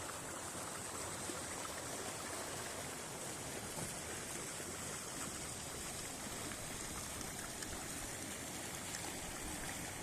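River water running steadily: an even rush of flowing water.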